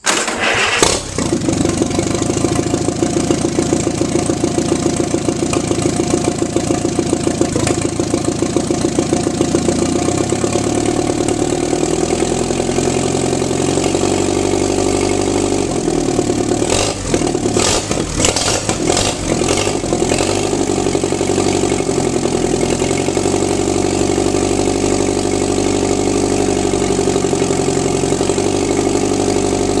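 Allis-Chalmers IB tractor's four-cylinder gasoline engine starting up abruptly and running steadily, its speed shifting in the middle with a brief uneven patch, then settling back to a steady run.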